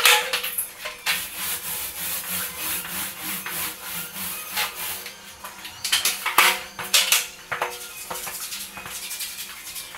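Paint roller on an extension pole rolling paint onto a wall in repeated strokes: a rasping, rubbing noise that swells with each stroke.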